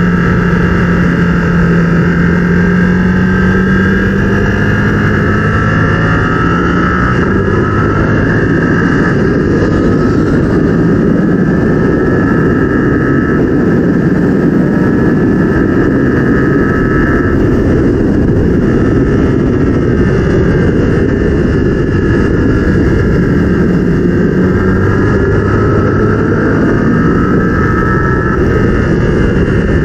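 Yamaha R7's 689 cc parallel-twin engine running hard, its pitch rising and falling again and again as it accelerates and slows, under a steady rushing noise.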